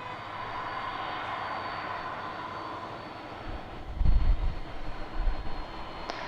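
Jet airliner's engines running with a steady whine over a rushing noise, with a burst of low rumble about four seconds in.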